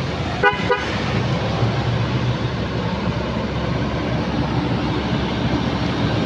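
Steady engine rumble of vehicles on the road, with motorbikes passing. About half a second in there is a short, pitched blip.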